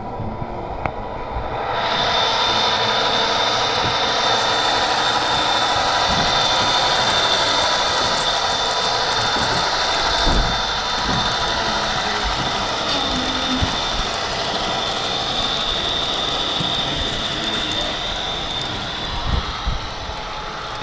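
Model train running on the layout track: a steady mechanical whir and hiss with a high whine that starts suddenly about two seconds in and eases off near the end, with scattered low knocks.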